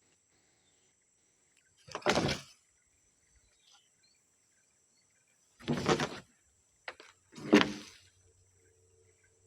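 Three short, loud knocks, about two, six and seven and a half seconds in, with a faint steady hum near the end.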